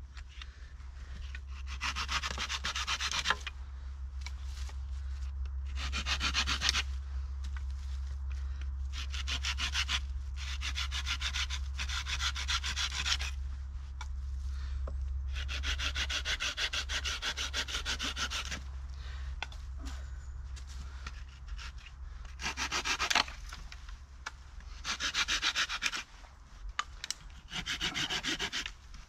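Small folding hand saw cutting dry dead branches into firewood: spells of quick rasping strokes lasting one to three seconds, broken by short pauses.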